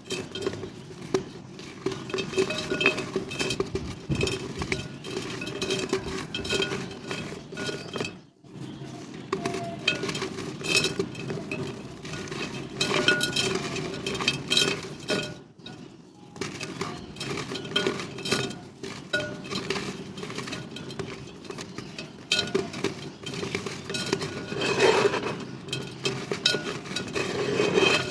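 Dried mud shapes and clay pot pieces being crumbled: dense crunching and crackling with brittle clinks of fragments. It pauses briefly about 8 seconds and 15 seconds in.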